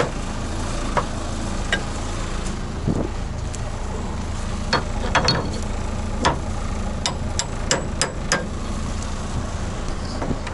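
Tracked vehicle's engine idling steadily, with about a dozen irregular sharp metallic clanks of a hammer striking the track.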